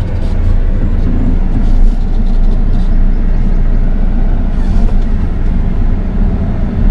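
Jeep Compass Trailhawk driving over a rutted dirt track, heard from inside the cabin: a deep, steady rumble of engine and tyres on the rough ground, with a few light knocks.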